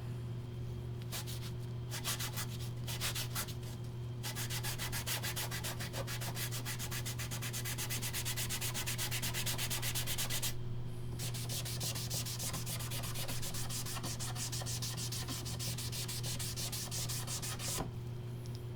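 Quick back-and-forth rubbing strokes on a wood sample while dye is worked in by hand, pausing briefly about 4 and 10 seconds in and stopping near the end. A steady low hum runs underneath.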